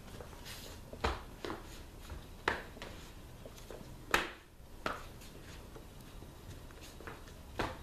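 Sharp clacks and knocks from a pair of fighting sticks swung through a martial-arts form, about six irregularly spaced strikes, the loudest about halfway through.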